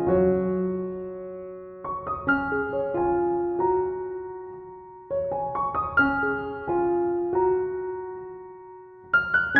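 Background music: a gentle solo piano melody in short phrases, each left to ring and fade before the next.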